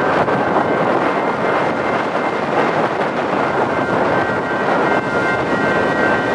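Railroad crossing warning with its electronic bells ringing steadily, under a constant loud rushing of wind on the microphone.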